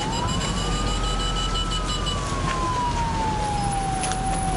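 Emergency vehicle siren wailing in one slow sweep: the pitch rises quickly in the first second, then falls gradually over the next few seconds, over a steady low rumble of noise.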